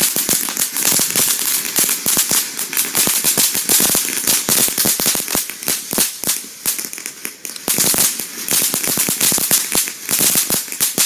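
Consumer firework crackling: a dense, rapid, unbroken run of sharp little pops, like a string of firecrackers, which stops right at the end.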